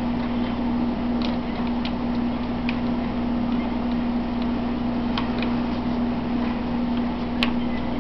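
Electric fan running with a steady hum and an even rush of air, with a few sharp ticks scattered through, the loudest near the end.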